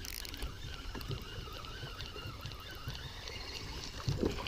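Quiet outdoor background on the water, with a few faint knocks and a louder knock near the end.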